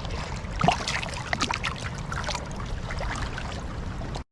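River water trickling and splashing close by, with a steady low rumble of wind on the microphone and a few sharp splashes and clicks in the first half. The sound cuts off suddenly near the end.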